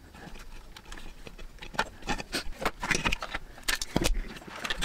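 Irregular plastic clicks, taps and rattles as a remote-controlled plug socket's housing and its wires are handled and fitted, with a sharper knock about four seconds in.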